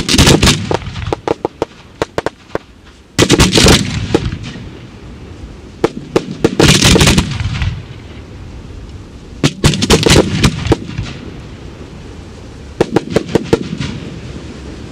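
Fireworks display of mortar-fired shells: five clusters of rapid sharp bangs and crackles, about three seconds apart, each trailing off in a low rumble.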